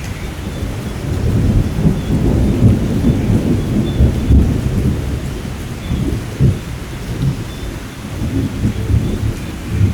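Thunder rolling over steady rain. The low rumble swells about a second in and keeps rumbling in uneven surges.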